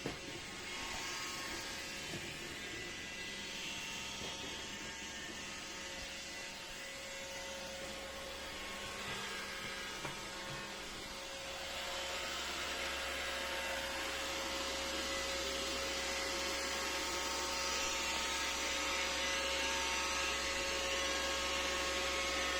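iRobot Roomba 606 robot vacuum running its motor and brushes as it searches for its charging dock: a steady whir with a constant hum, growing a little louder about halfway through.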